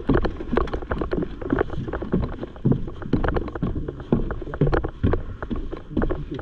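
Footsteps climbing a wooden staircase and walking onto a plank walkway, with irregular knocks and thuds of boots on boards and gear rattling.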